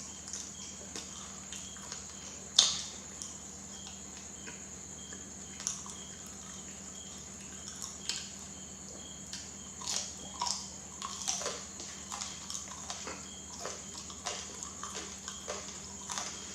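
Close-miked wet mouth sounds of someone chewing banana: soft irregular clicks and smacks, one sharper, louder click about two and a half seconds in, and more frequent ones in the second half, over a faint steady high whine.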